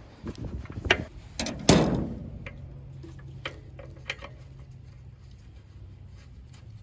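A few sharp knocks and clunks in the first two seconds, the loudest with a short ringing decay, then a low steady hum with a few light ticks.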